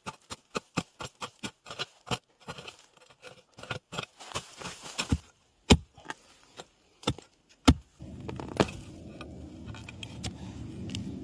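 Hand digging tool chopping and scraping into soil and bamboo roots to free a winter bamboo shoot: irregular sharp strikes, a few a second, with two hard blows late in the run. After about eight seconds the strikes stop and a steady low rumble remains.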